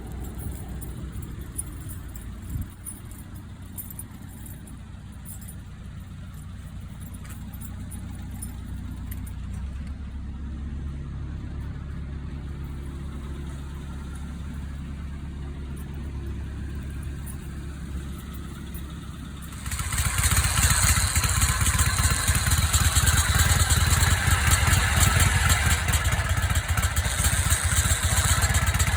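Harley-Davidson Knucklehead V-twin engine running with a low, steady rumble. About twenty seconds in, the sound turns suddenly much louder and rougher.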